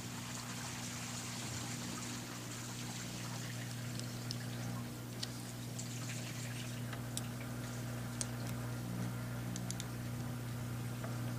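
A steady low hum with a few light clicks and ticks scattered through it, typical of small plug parts and tools being handled while a cord is wired.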